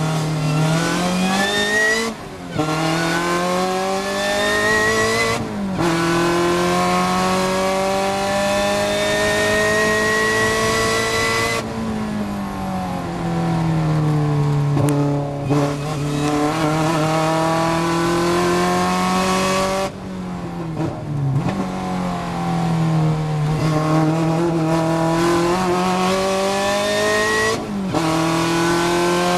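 Supercharged Opel Speedster's four-cylinder engine under hard acceleration, heard from on board. The revs climb and drop back at quick upshifts about two and five seconds in, then pull in one long rise. They fall away as the driver lifts off just before halfway, then climb again with further lifts and shifts near the end.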